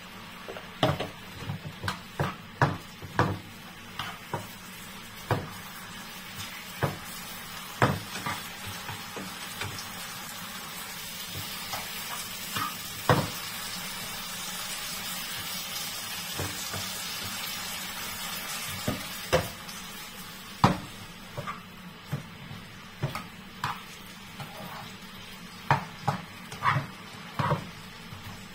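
Broccoli stir-frying in a frying pan: a steady sizzle, louder in the middle stretch, with many sharp taps and scrapes of a metal spatula against the pan.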